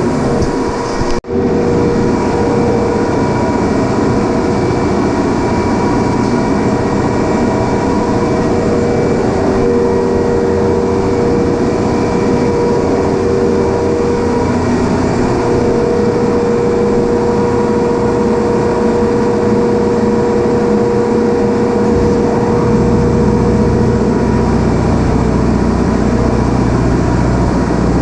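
Loud, steady industrial machinery running with a constant hum and a few steady tones, typical of running refrigeration compressors in an ammonia engine room. There is a brief dropout about a second in.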